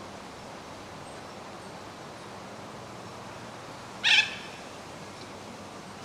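A single short, harsh screech from a white cockatoo about four seconds in, over a steady background hiss.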